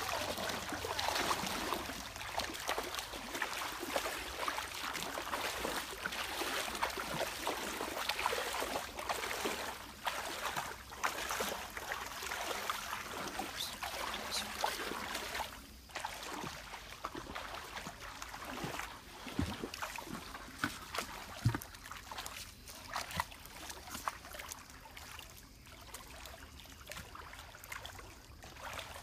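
Water sloshing and splashing irregularly as legs wade through a shallow stream, over the stream's trickle. The splashing is busier in the first half and eases off after about halfway.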